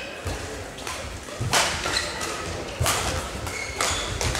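Badminton rackets striking the shuttlecock in a rally: three sharp smacks about a second apart, with short shoe squeaks on the court floor between them.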